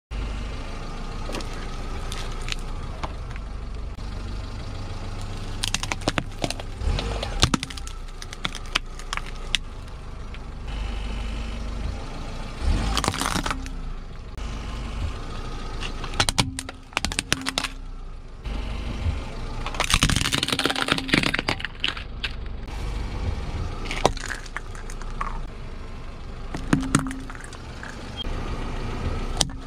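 A car's tyres rolling slowly over plastic objects on asphalt, crushing them in clusters of sharp cracks and crunches over a steady low engine hum. The things crushed include a boxed calculator, disposable plastic razors and small plastic toy animals.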